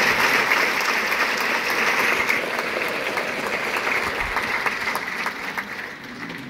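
Theatre audience applauding, the clapping fading steadily and dying away near the end.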